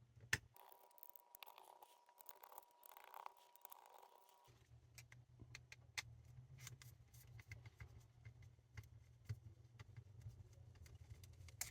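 Faint, scattered clicks and light scrapes of a small screwdriver and screws being worked out of a radio's circuit board. A faint steady whine runs for about four seconds near the start.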